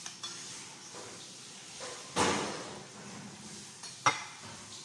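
Spoon and fork on a plate while eating: a short, louder noisy scrape a little over two seconds in, and a sharp ringing clink near the end.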